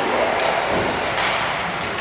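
Ice hockey rink during play: a steady noise of skate blades on the ice, with a few short clicks or scrapes and faint, distant voices.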